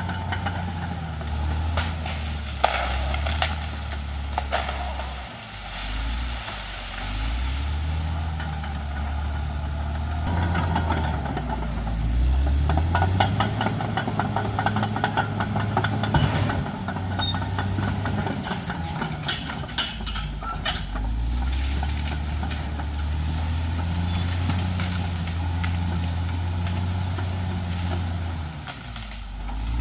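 Caterpillar D6R XL crawler bulldozer's diesel engine working under load while it pushes over trees, its pitch dropping and rising again several times. Sharp cracks and clanks come through at times, several bunched around the middle.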